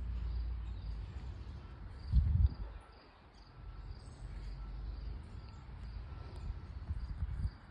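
An insect chirping steadily outdoors, a short high pulse about twice a second, over a low rumble on the microphone. A loud dull thump on the microphone about two seconds in, and a few weaker ones near the end.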